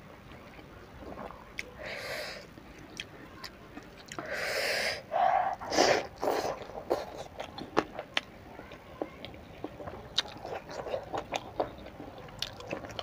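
Close-up mukbang eating: a mouthful of rice and stir-fried squid with fern eaten by hand and chewed, with many wet smacks and clicks. A few louder bursts of noise come about two seconds in and again between about four and six and a half seconds in.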